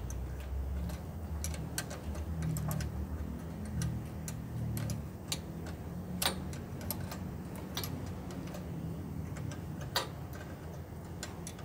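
Irregular sharp metal clicks of an open-end spanner being worked and repositioned on the alternator's belt-adjusting bolt while setting fan belt tension, over a low steady hum.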